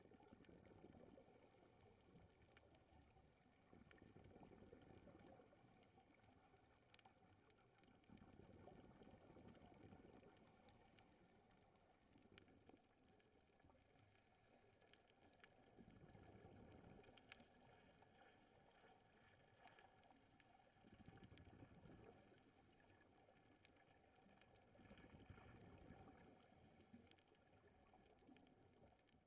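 Faint, muffled underwater sound of a scuba diver's exhaled bubbles, swelling and fading about every four seconds, with scattered faint clicks.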